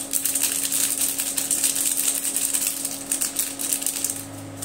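Crinkly plastic spice sachet being squeezed and shaken to empty its powder into a bowl: a rapid crackling rustle that fades out near the end.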